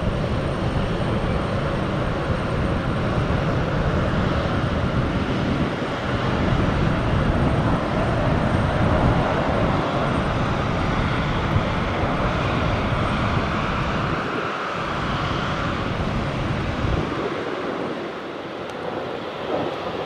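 Twin turbofan engines of an Embraer E190 airliner running steadily on the ground, a loud even jet noise with a faint high whistle, easing a little near the end.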